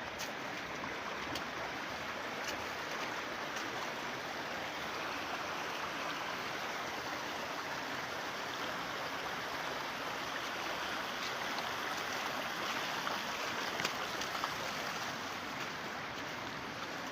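Running water of a stream, a steady rushing, with a few faint clicks.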